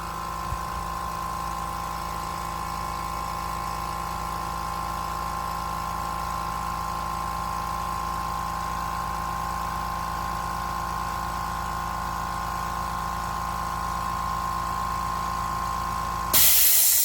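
Limodot oil-free electric air compressor running steadily with a hum of fixed tones, slowly getting louder. Near the end a loud burst of hissing air comes and the running stops, typical of the unloader valve venting when the compressor cuts out.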